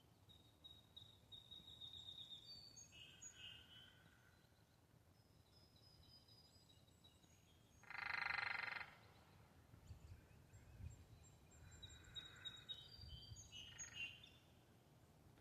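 A woodpecker drumming on a wooden telephone pole: one rapid roll lasting about a second, about halfway through. Faint songs of other birds come and go before and after it.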